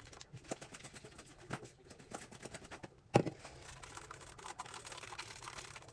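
Close handling noises as a paper coffee cup is held and fiddled with: scattered small clicks and rustles, and one sharp knock about three seconds in.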